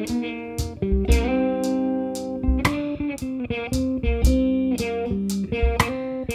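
Instrumental break played live by a small band: electric guitar and bass guitar holding and changing chords over a drum kit, with regular drum and cymbal hits.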